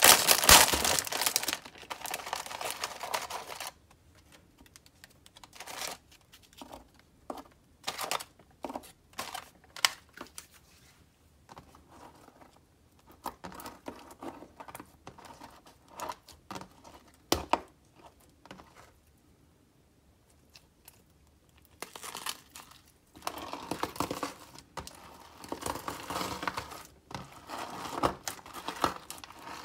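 Crinkling and tearing of a foil-lined Oreo cookie package being ripped open, loud and dense for the first few seconds. Then sparse sharp clicks and crackles with quiet gaps, and near the end dense crackling and squishing as clear slime is kneaded with the cookies.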